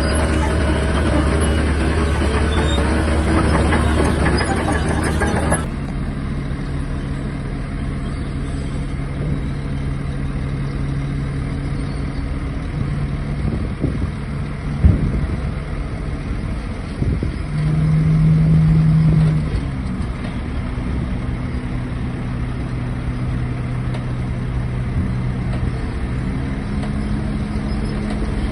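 Heavy diesel engine of a Shantui DH17-C3 bulldozer running steadily. About five and a half seconds in the sound drops abruptly to a quieter, steadier engine note. A couple of sharp knocks come near the middle, and a brief louder, higher note follows for about two seconds.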